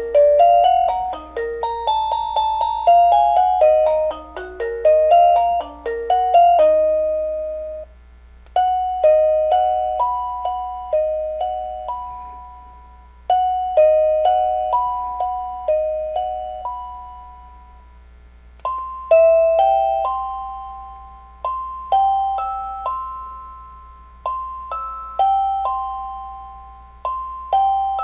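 Wireless doorbell chime receiver playing its selectable ringtones one after another: electronic bell-like melodies of struck, decaying notes. The tune changes about eight seconds in and again about nineteen seconds in.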